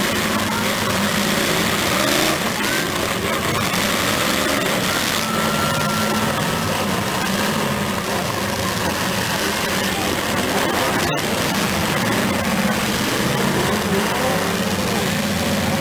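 Engines of several demolition derby cars running and revving together, a steady mechanical din under an even haze of noise.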